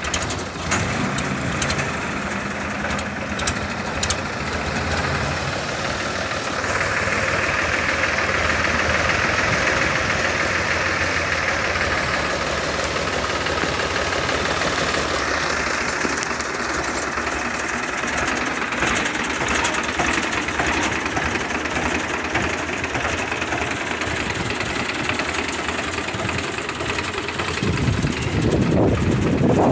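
Escorts Powertrac 434 tractor's three-cylinder diesel engine running steadily, its note growing a little louder and brighter about six seconds in as the tractor is driven.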